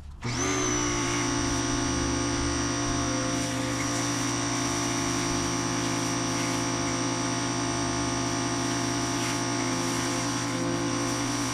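A steady machine drone that starts abruptly and rises briefly in pitch as it comes up to speed, then holds an even pitch.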